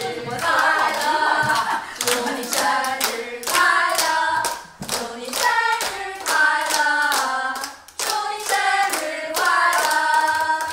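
A group of women singing a song together while clapping their hands to the beat.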